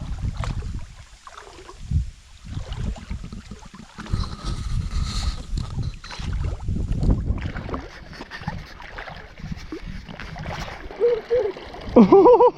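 Water sloshing and gurgling as a person moves through deepening river water, with uneven low buffeting on the microphone.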